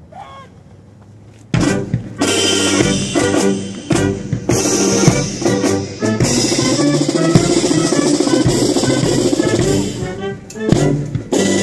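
A Marine Corps marching band of brass and drums, sousaphones and bass drum among them, strikes up suddenly about a second and a half in and plays loudly on.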